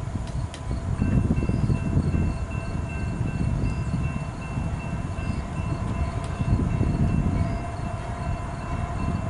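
CSX freight train of empty autoracks rolling by, a low uneven rumble that grows louder about a second in. Several steady high tones sound over the rumble from that moment on.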